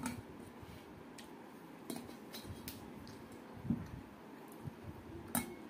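Eating rice by hand from a steel plate: scattered soft clicks, smacks and light clinks from chewing and from fingers and bangles against the plate, with a duller knock a little before four seconds in.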